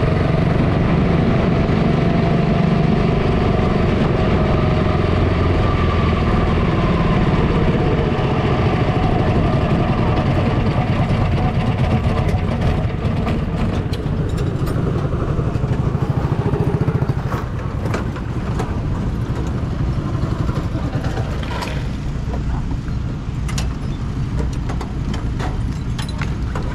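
Quarter midget race car engines running in a line of cars, heard from the driver's seat of one of them. About two-thirds of the way through the engine sound drops somewhat, and a few scattered clicks follow.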